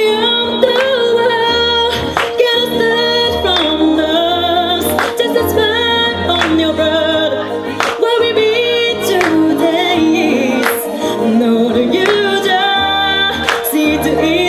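A woman singing a song live, her voice gliding through held notes over backing music with a bass line and occasional percussive hits.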